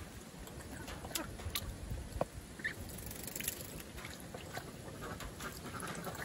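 Ducks splashing and dabbling in a shallow plastic tub of water, a patter of short splashes and bill clicks, with a few soft duck calls.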